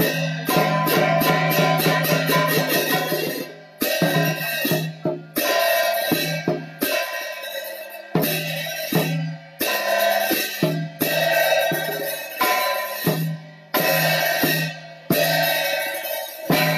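Funeral-rite percussion of drum and clashing cymbals, played in short dense phrases that repeat every couple of seconds, each broken by a brief dip.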